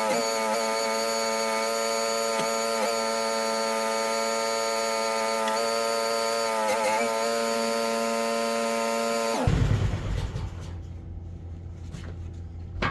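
QK16R mini loader running with a steady high whine, its pitch sagging briefly a few times as the hydraulics are worked to pick up the bucket. About nine and a half seconds in it drops abruptly to a lower rumble with a few clicks.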